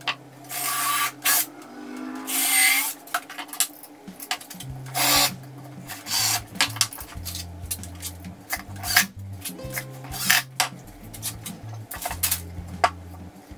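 Background music with a steady bass line, over scraping and rustling noises and sharp knocks as a pine board box is worked by hand on kraft paper.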